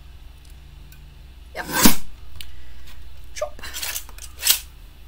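Sliding-blade paper trimmer cutting a small strip of card: the blade carriage is run along the track and the cutting rail is lifted. There is a loud sudden burst just before two seconds in, and a shorter sharp knock near the end.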